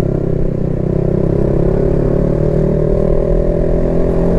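Honda CB150X's single-cylinder engine running steadily under load at low speed.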